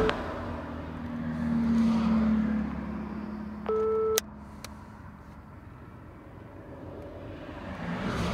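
Steady car road noise inside the cabin, swelling for a couple of seconds early on. About four seconds in, a mobile phone gives one short steady electronic beep that cuts off sharply, followed by a click.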